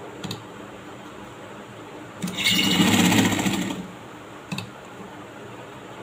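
Domestic sewing machine running in one short burst of about a second and a half, stitching a folded kameez hem. A light click comes shortly before the burst and another about a second after it.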